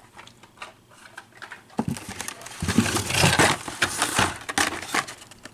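Carded Hot Wheels cars being handled: plastic blisters and cardboard backing cards rustling and clacking together. Faint scattered clicks at first, then a dense spell of crackling and clattering from about two seconds in that fades near the end.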